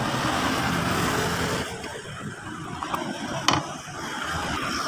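Engine rumble of a passing motor vehicle, loudest over the first couple of seconds and then fading. About three and a half seconds in there is one sharp click, as a metal screwdriver is set down on the wooden bench.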